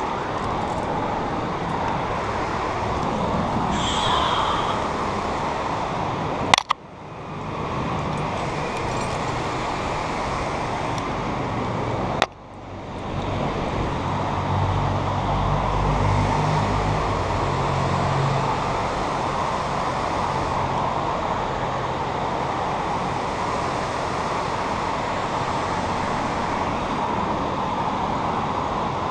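Steady rush of a white-water river. Two sharp clicks, about six and a half and twelve seconds in, are each followed by a brief dip in the noise, and low rumbling wind gusts hit the microphone around the middle.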